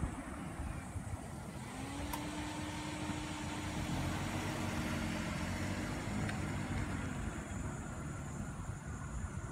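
A motor vehicle's engine hum comes in, holds steady for a few seconds, then drops in pitch and fades away, over steady wind rumble on the microphone.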